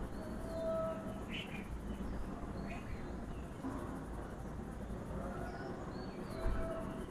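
Birds chirping in short calls over a steady low rustle, with two brief crackles about a second and a half apart.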